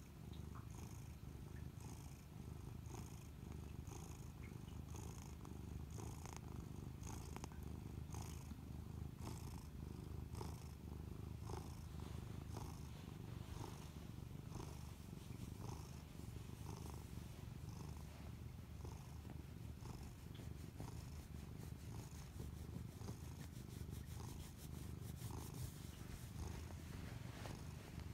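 A tabby house cat purring steadily close to the microphone, a low continuous rumble that pulses about once a second. The cat has just woken and is purring on meeting its owner's eyes.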